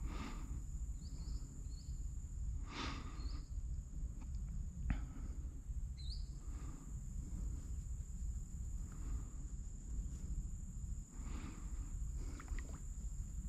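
Outdoor ambience: a low rumble of wind on the microphone and a steady high thin whine, with a few short bird chirps and a couple of soft rustles and a sharp click.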